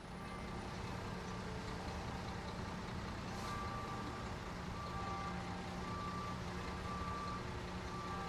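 Street background sound with a steady low hum and, from about three seconds in, a short high beep repeating about once a second.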